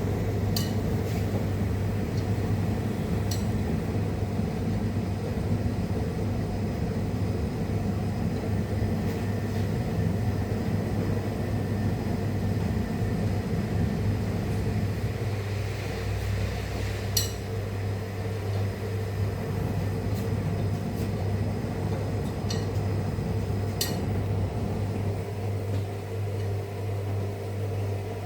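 Rex-Electrolux Jetsy Talkie RJ 7160 TA washing machine running mid-cycle: a steady low hum with a few sharp clinks scattered through it.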